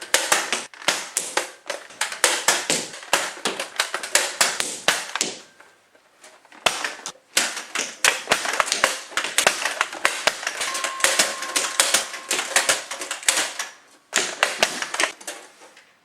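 Rapid runs of sharp clicks and snaps, like Nerf blasters firing in quick succession, in spurts with two short breaks. It cuts off suddenly at the end.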